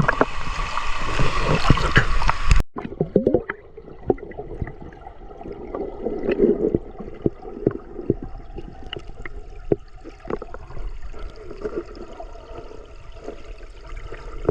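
Mountain stream water rushing and splashing, loud at first. About three seconds in it cuts abruptly to quieter, duller gurgling water with scattered small knocks and splashes.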